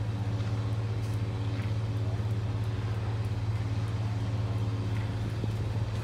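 Ship's engine running: a low, steady hum with several steady tones above it. Faint short high chirps come through a few times.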